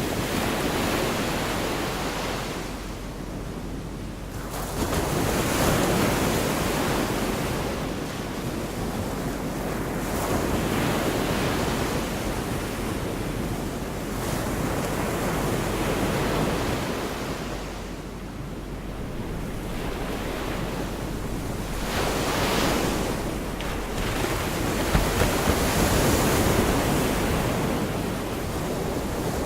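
Gulf of Mexico surf: waves breaking and washing up the beach, swelling and falling back every few seconds, with wind rumbling on the microphone.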